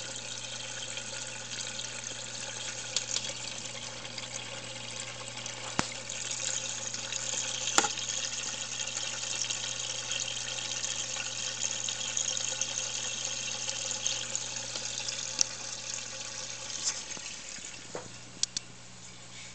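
Water trickling and splashing steadily in a paludarium's water feature, over a low steady hum from its pump, with a few sharp light clicks. Near the end the water sound drops to a quieter level.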